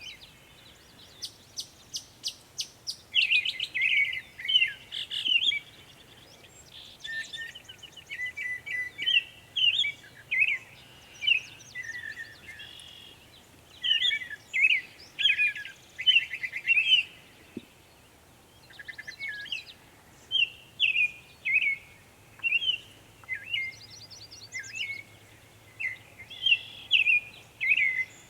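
Northern mockingbird singing: a long, varied run of phrases, many made of one note repeated quickly several times, broken by short pauses.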